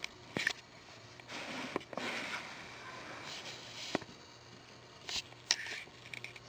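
Maltese puppy scrabbling about in a plush fabric pet bed: soft rustling and scratching, with several sharp clicks.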